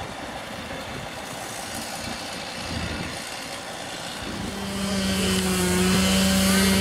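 Small gas-engine handheld saw cutting old wooden crossing boards: it comes up to a steady high-speed run about four and a half seconds in, over a low engine rumble underneath.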